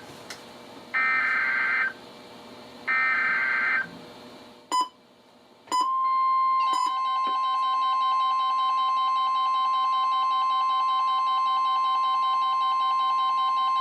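NOAA Weather Radio SAME header: two buzzy digital data bursts about a second apart, the end of the three-times-repeated code for a practice tornado warning. After two short blips, the steady 1050 Hz warning alarm tone starts. About a second later a chorus of weather radios sets off their own beeping alarms as the code triggers them.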